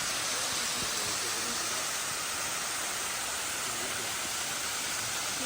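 Steady rushing hiss of falling water: a waterfall together with pouring rain, even and unbroken.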